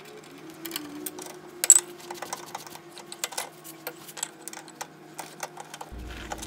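Light metal clicks and knocks of setting up work on a milling machine: a drill bit tightened into the chuck, a square steel tube laid into the machine vise and the vise handle cranked. One sharper clack comes about two seconds in, over a faint steady hum.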